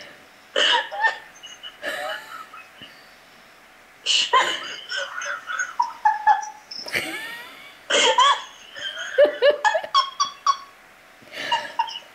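A woman laughing heartily in several bouts, with short pauses between them.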